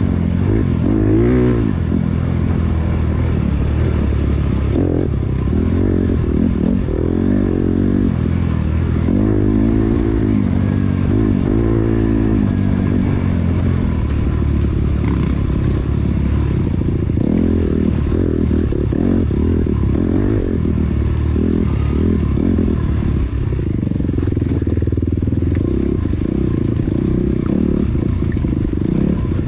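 Dirt bike engine under hard riding, its pitch rising and falling over and over as the throttle is worked on and off through a tight trail.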